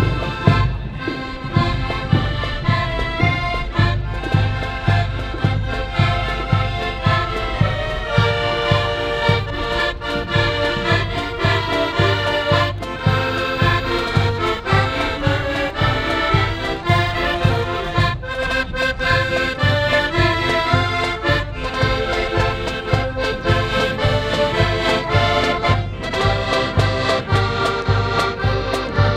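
Marching accordion band playing a tune on piano accordions, with a steady drum beat underneath.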